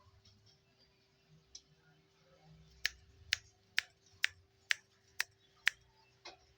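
A run of seven sharp clicks, evenly spaced about two a second, over a faint steady hum.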